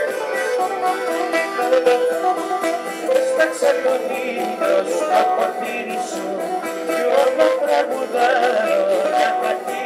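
Live Greek folk music played by a bouzouki, acoustic guitar and keyboard trio, with a wavering plucked melody over steady chords.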